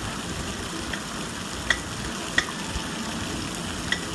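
Steady hiss of running, splashing water at a splash pad, with three short sharp clicks in the second half.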